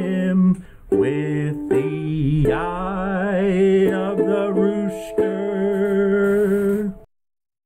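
Ukulele song with a singing voice, ending on one long held, wavering sung note over a sustained chord; the music cuts off abruptly near the end.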